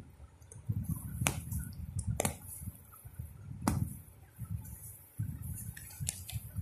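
A hand in a thin plastic glove rubbing over a sheet of crayon-coloured paper: low scuffing and rustling with a fine plastic crinkle, broken by a few sharp clicks.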